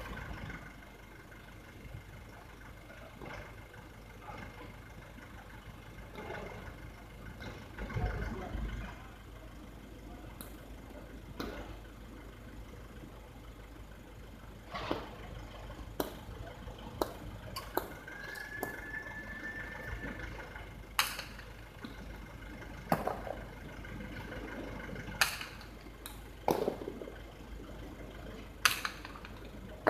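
Hard jai alai pelota cracking against the fronton walls and floor during a rally: a string of sharp, irregularly spaced cracks, most of them in the second half.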